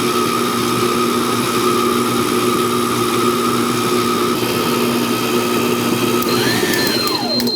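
Vevor 600-watt stand mixer's motor running steadily with a hum while the scraper beater creams thick peanut butter cookie batter. Near the end it is switched off and winds down in a falling whine.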